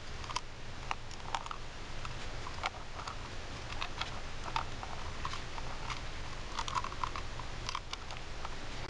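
A small screwdriver working the tiny screws of a GoPro housing's lens retaining ring out of the plastic case: scattered light clicks and ticks over a steady hiss.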